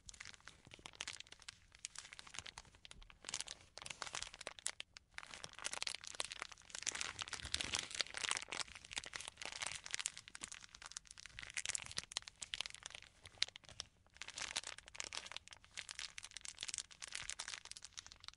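Plastic film crinkling and crackling close up as fingers twist and tuck its ends shut around a log of raw ground-chicken salami mixture. It is a steady run of small crackles with a couple of short pauses.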